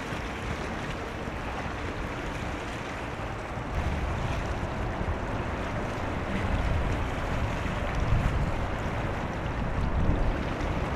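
Wind buffeting the microphone over a steady wash of sea water, the low rumble of the gusts growing stronger about four seconds in.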